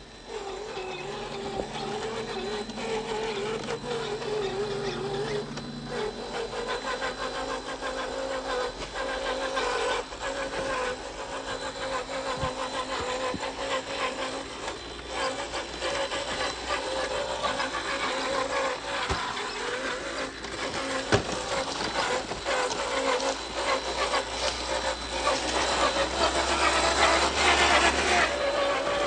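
Cross RC Demon scale crawler running, its electric motor and metal-geared aluminium G2 transmission whining with a pitch that wavers up and down as the throttle changes. There are a few sharp knocks, and it gets louder near the end.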